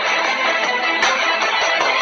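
Steady background music, the music bed of a TV news report.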